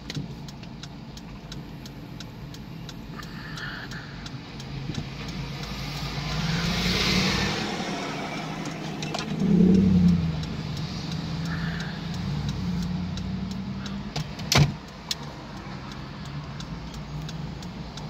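Inside a car's cabin while driving slowly in traffic: a steady engine and road hum. A vehicle passes with a swell of noise about six to eight seconds in, and a louder low rumble follows about ten seconds in. A single sharp click comes in the last few seconds.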